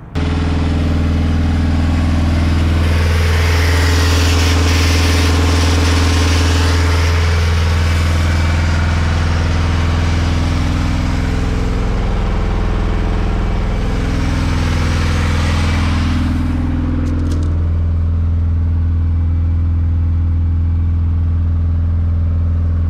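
Pontiac Fiero's 2.5-litre Iron Duke four-cylinder running on a temporary gas-can fuel feed, a steady exhaust note whose speed rises and falls a little in the first two-thirds. It is heard close to the tailpipe at first, then duller from the cabin over the last few seconds.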